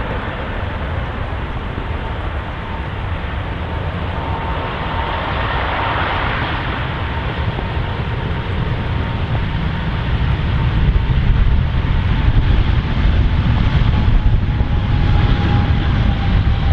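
Boeing 777's twin GE90 jet engines running at high power as the airliner rolls along a wet runway: a deep rumble and rushing noise with a steady fan whine. It grows louder from about ten seconds in, and the whine drops slightly in pitch near the end as the aircraft passes.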